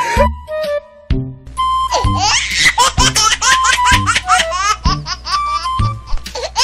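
Playful comic background music with a steady beat about once a second, mixed with laughter; it drops away briefly about a second in, then resumes.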